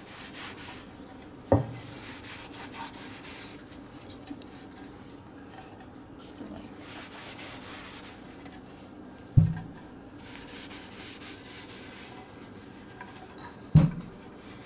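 Cloth wiping oil into a hard maple cutting board in repeated rubbing strokes. Three dull knocks of the heavy board against the counter stand out: about a second and a half in, after about nine seconds, and near the end as the board is tipped up on edge.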